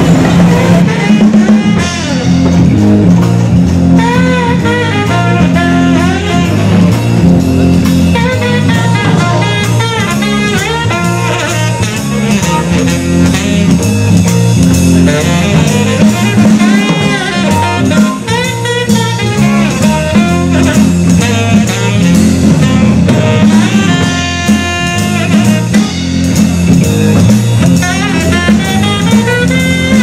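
Live jazz band playing: a saxophone carries the melody over keyboard, bass guitar and drum kit.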